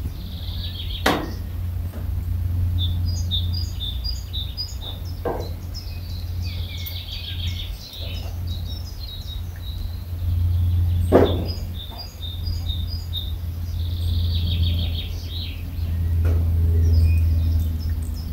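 Small birds chirping and singing in short repeated phrases, over a steady low rumble. Three sharp knocks stand out, about a second in, about five seconds in and, loudest, about eleven seconds in.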